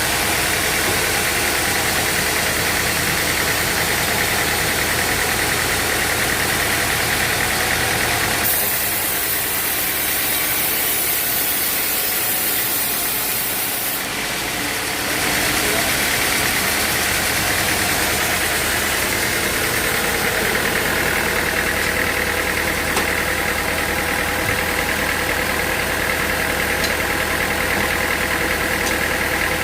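Sawmill machinery running with a steady engine-like hum. The sound changes abruptly about eight seconds in and returns to the steady hum some six seconds later.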